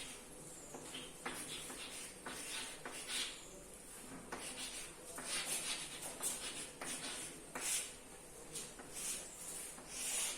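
Writing on a board: a run of irregular, short, scratchy strokes, faint.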